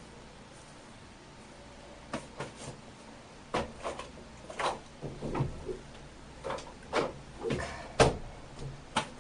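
A series of irregular clicks and knocks, like cupboard doors and small objects being handled, beginning about two seconds in.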